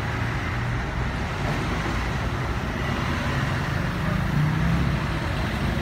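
Steady motor-vehicle rumble, a low drone that shifts a little in pitch, with no clear strikes or breaks.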